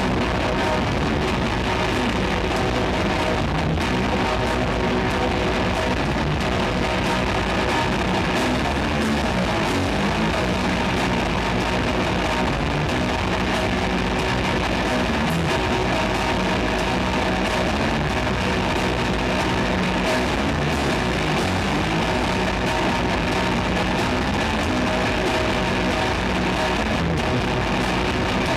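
Doom metal band playing live: loud electric guitars holding long, sustained notes in a continuous dense wall of sound.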